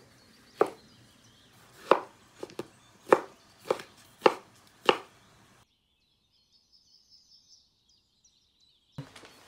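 A kitchen knife chopping vegetables on a cutting board: single firm strokes at about one every half second to a second. The chopping stops about five seconds in, leaving only faint high chirping.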